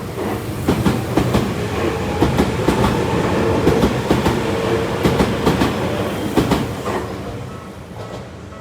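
A Tokyu 9000-series electric train passing close by, its wheels clacking over the rail joints in a quick run of sharp knocks over the rushing of the cars. It is loudest through the middle and fades near the end as the train draws away.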